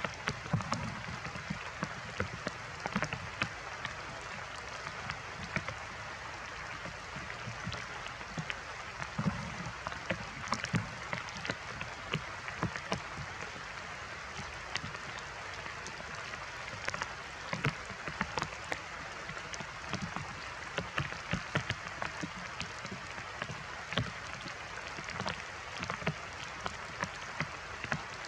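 Steady heavy rain, with many irregular sharp drop hits close by.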